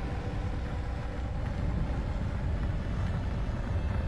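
Low, steady rumble of a large explosion and its rolling fireball, with no sharp bang.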